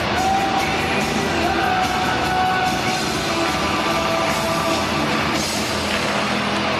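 Line dance music with a steady beat and a held melody, played loudly over the hall.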